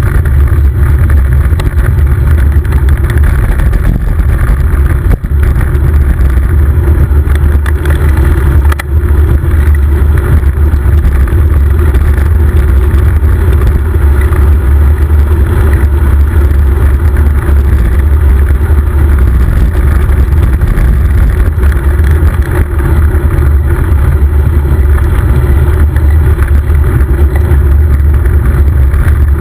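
Loud, steady wind rumble on the microphone of a camera riding along on a moving bicycle, with no let-up.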